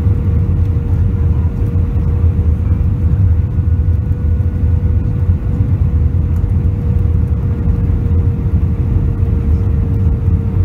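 Cabin noise inside a jet airliner on final approach: a steady, loud low rumble of engines and airflow, with a steady tone running through it.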